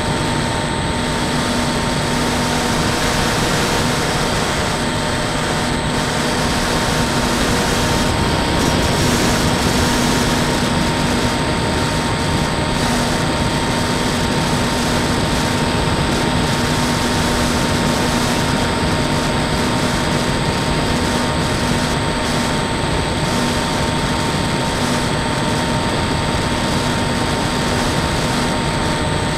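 Bixler 2 electric RC motor glider in flight, heard from its onboard camera: the brushless motor and pusher propeller give a steady whine over a constant rush of air and wind on the microphone.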